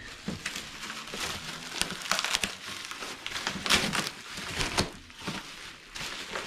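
Hands handling plastic toilet parts: a run of irregular clicks and taps with crinkling between them.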